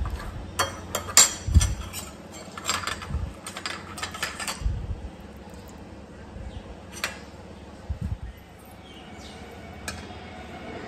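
Clinks and knocks of serving utensils against ceramic and steel dishes as food is served onto a plate: a cluster of sharp clinks in the first few seconds, then a few scattered ones, with some dull thumps.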